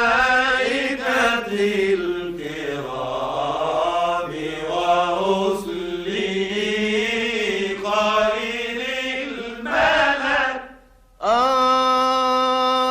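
Solo male voice chanting an unaccompanied Islamic ibtihal: a long melismatic run with ornamented, wavering pitch. It breaks off briefly near the end, then a new note starts and is held steady.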